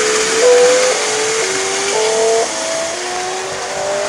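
Model steam train's electronic sound chip playing a steady steam hiss with a run of held tones that step up and down in pitch about twice a second.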